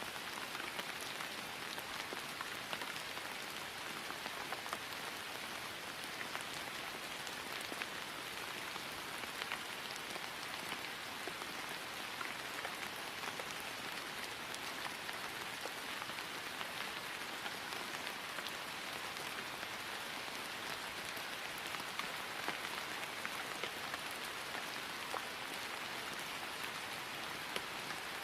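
Steady rain falling on grass, an even patter with many individual drops ticking through it.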